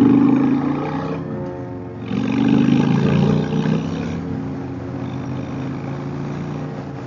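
Harley-Davidson Fat Boy's V-twin engine accelerating hard as the motorcycle pulls away. It surges twice with a brief dip between, as on an upshift, then settles into a steadier run with wind noise.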